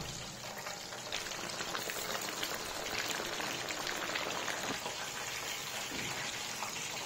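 Battered chicken breasts deep-frying in hot oil: a steady dense crackling and bubbling. The coating is frying crisp.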